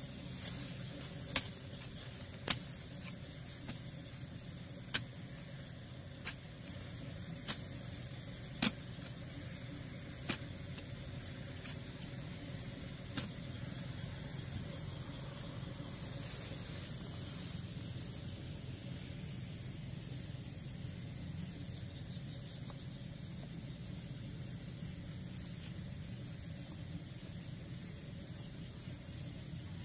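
A digging tool striking and scraping soil at a frog hole, giving about ten sharp knocks at uneven intervals, mostly in the first dozen seconds. Behind it is a steady high insect chorus.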